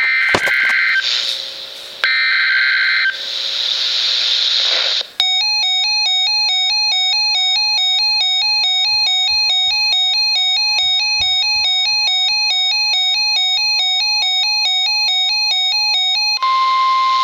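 NOAA Weather Radio Emergency Alert System tones. Short bursts of screechy digital data tones with radio static between them come first. About five seconds in, a rapidly alternating two-tone electronic alarm starts and runs for about eleven seconds. A steady warning tone near 1 kHz joins it and is left alone with static near the end.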